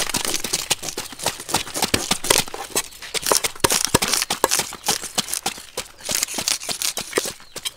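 Cleaver blade scraping the scales off a large fish on a wooden chopping block: rapid, irregular scratchy strokes with crisp clicks as the scales flick off.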